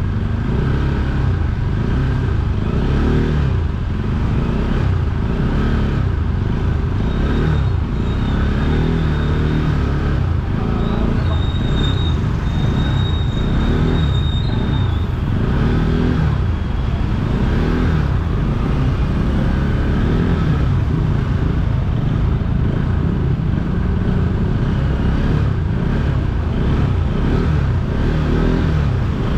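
Motorcycle engine running at low road speed, its pitch rising and falling with the throttle.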